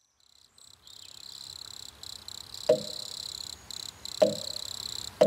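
Intro of a hip-hop backing track fading in: a steady high chirring, with three heavy drum hits about a second or so apart in the second half.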